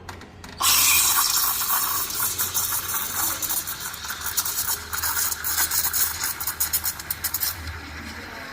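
Espresso machine steam wand with a four-hole tip hissing loudly into a pitcher of milk, coming on suddenly about half a second in with a fast flickering sputter, then dropping to a quieter hiss near the end.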